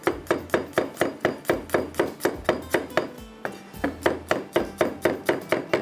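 Chef's knife slicing garlic cloves on a wooden cutting board: quick, even chops about four to five a second, over soft background music.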